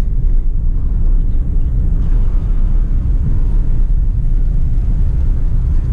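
Steady low rumble of a Suzuki Alto Lapin (HE33S) under way, its three-cylinder kei-car engine and tyre noise heard from inside the cabin.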